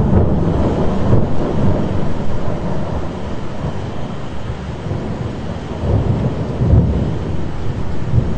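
Thunder rumbling over steady rain: a loud rolling peal right at the start that slowly dies away, then a second swell of rumbling about six seconds in.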